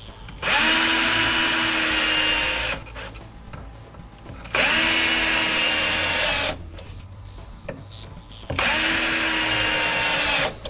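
Cordless drill running in three bursts of about two seconds each at the center hole of a metal drawer-glide mounting bracket. Its motor whine bends up briefly as each burst starts.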